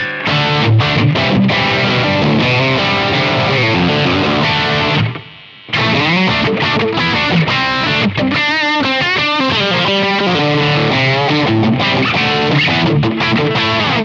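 Overdriven electric guitar played through a DSM Humboldt Simplifier MK2 preamp and cab simulator, strumming chords and riffs. The playing stops briefly about five seconds in, and there is a quicker run of single notes a little after the middle.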